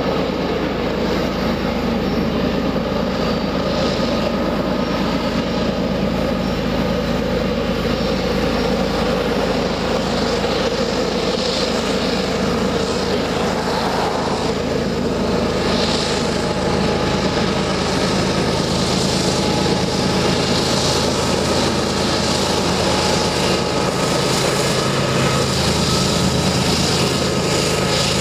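Canadian Pacific diesel-electric locomotives hauling a loaded grain train up a mountain grade, their engines thrumming steadily under load. The sound grows louder and deeper near the end as the lead units pass close by.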